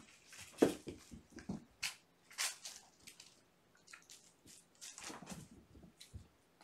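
Kittens romping and wrestling on a carpeted floor and in a cardboard scratcher: irregular thumps, scuffles and scratching. The loudest thump comes about half a second in, and a rustling scuffle follows around two and a half seconds in.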